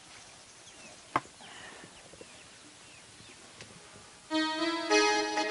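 Quiet outdoor background with faint bird chirps and one sharp click about a second in. A little past four seconds in, background music comes in suddenly and loudly, held chord-like notes on a reedy keyboard instrument.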